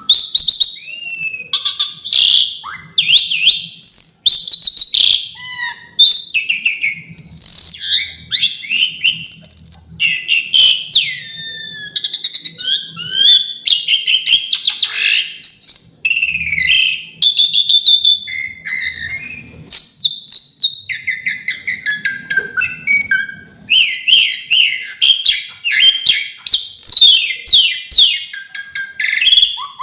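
Pied starling (jalak suren) singing a long, varied song of whistles, chirps and quick trills with only short breaks. The song is filled with mimicked calls (isian).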